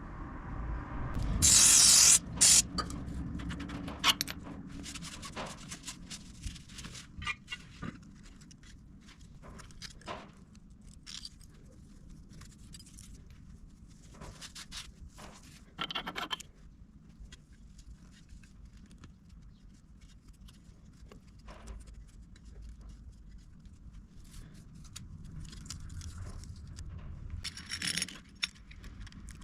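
Workshop handling noises: scraping and scattered clicks and knocks of metal parts and tools, with one loud scraping burst about two seconds in.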